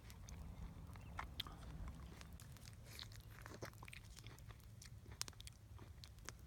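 A person chewing a soft baked apple close to the microphone: faint, scattered wet mouth clicks and smacks.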